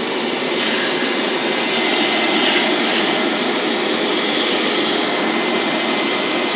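A Hoover carpet and upholstery shampoo vacuum running steadily with a high whine as its upholstery tool sucks water and dirt out of a wet fabric seat. The suction grows hissier about half a second in.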